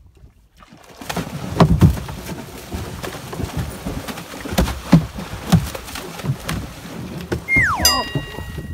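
A large hooked cobia thrashing and splashing at the water's surface beside a small boat, with heavy splashes and sharp knocks from about a second in. Near the end a falling whistle-like tone gives way to steady ringing tones.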